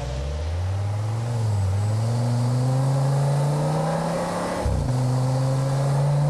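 Electronic engine-revving sound played through the small speaker of a battery-powered toy Mercedes-AMG G-Class model car, a steady running tone with slight rises and falls in pitch. It breaks off briefly a little before five seconds in, then starts again.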